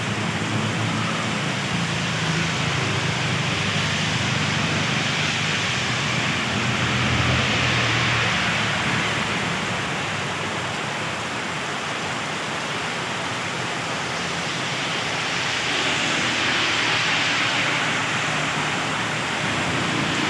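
Steady heavy rain, a dense even hiss that swells and eases slowly, with a low hum underneath.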